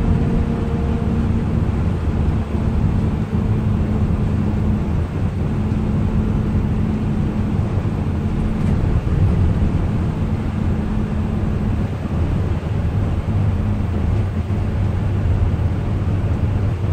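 A Hyundai Unicity coach's Euro 6 H325 diesel engine running while the coach drives, heard from inside the passenger cabin: a steady low drone over road noise. The engine note shifts slightly a couple of times and grows fuller near the end.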